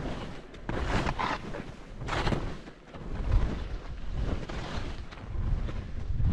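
Skis scraping and hissing through chopped-up snow in a run of turns, over a low rumble of wind on the microphone that grows stronger near the end.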